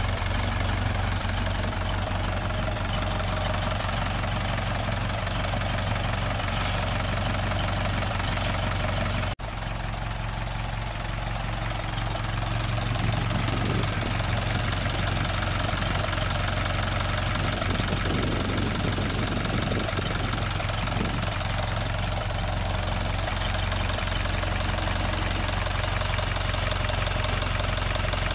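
Rebuilt Ford Model T side-valve four-cylinder engine running at a steady idle on a test stand, with a brief dropout about nine seconds in.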